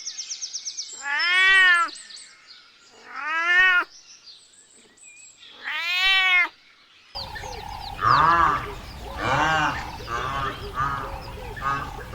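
A cat meowing three times: drawn-out meows that rise and fall in pitch, about two seconds apart. About seven seconds in, the sound cuts to a busier scene with background hiss and a quick run of shorter animal calls.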